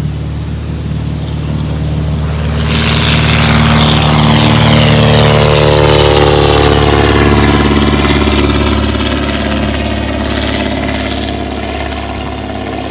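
Vintage WWI-style biplane's propeller engine at full power, swelling as the plane passes close by and then fading, its pitch dropping as it goes past.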